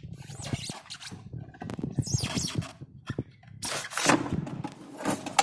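Irregular clicks, knocks and scraping from parts of an electric water heater being handled and taken apart, with the sharpest knocks around four and five seconds in.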